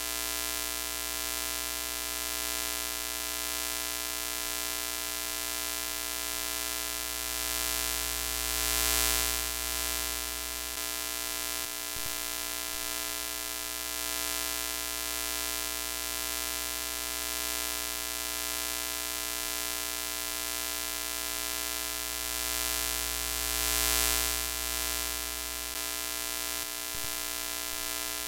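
Broken-TV sound effect: a steady electrical hum with many overtones under static hiss. It swells louder twice, about a third of the way in and again near the end.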